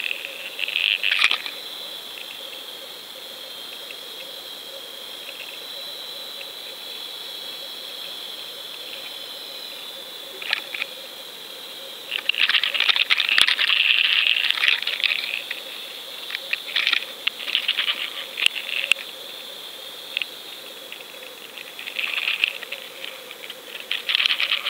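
Underwater sound picked up by a GoPro in its waterproof housing: a steady high whine under bursts of crackling and clicking, heaviest about halfway through, with one sharp click in the middle of it.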